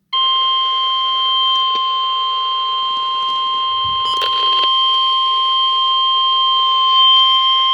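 Canadian Alert Ready attention signal: a steady electronic alert tone with two pitches held together, high and piercing, lasting nearly eight seconds and cutting off suddenly. It marks the start of a broadcast emergency alert, here a severe thunderstorm warning. A brief crackle sounds about four seconds in.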